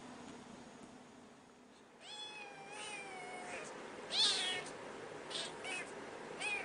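A cat meowing: one long, drawn-out meow that falls in pitch about two seconds in, then a louder short meow, then a few shorter meows near the end.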